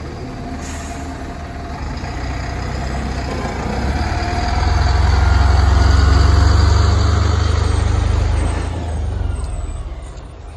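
Diesel engine of a large three-axle fire department logistics support truck driving slowly past. A deep engine rumble swells as it draws level, about halfway through, then fades near the end.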